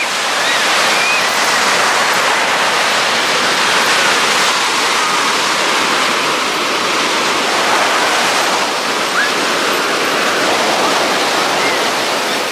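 Ocean surf breaking and washing up the beach, a steady loud hiss, with a few brief gull calls scattered through it.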